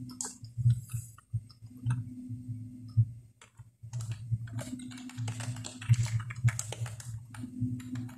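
Computer keyboard typing as a password is entered: scattered keystrokes at first, then a quick run of keys in the second half. A low hum lies under the clicks.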